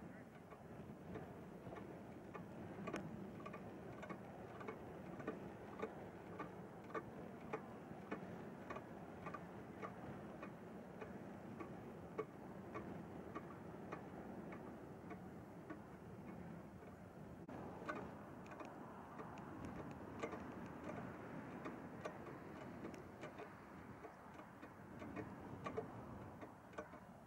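Steady ticking, about two short clicks a second, over a low background murmur.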